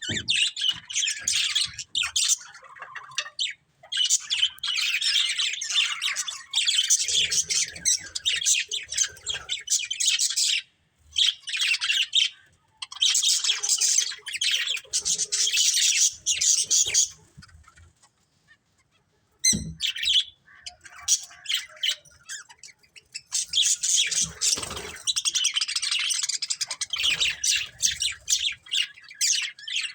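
Several budgerigars chattering and chirping in busy bouts, with short breaks and one pause of about two seconds a little past the middle that ends in a single sharp click.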